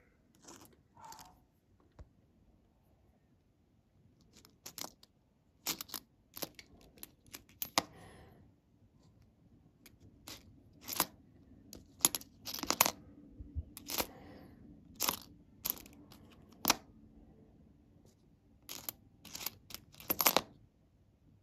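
Jefferson nickels clicking and clinking against each other as a fingertip pushes and tips them over along a row, in irregular sharp clicks, sometimes several in quick succession.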